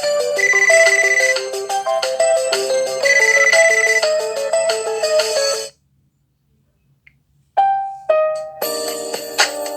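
Classic LG ringtones played on an LG G8 ThinQ phone: a quick electronic melody of short notes cuts off suddenly a little over halfway through. After a short silence another ringtone starts with a few separate notes before its fuller tune comes in.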